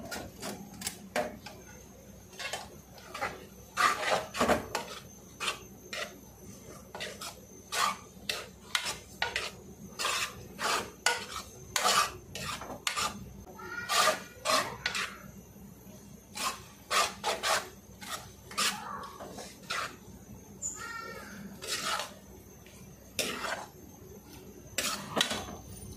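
Metal spatula scraping and knocking against a metal wok as spaghetti is tossed and mixed, in irregular strokes, often several a second.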